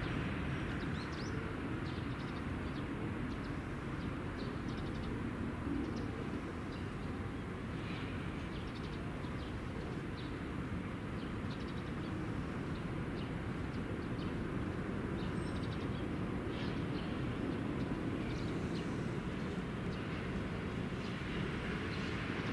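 Steady distant rumble of rail and road traffic around a busy trackside station, with faint, scattered bird chirps.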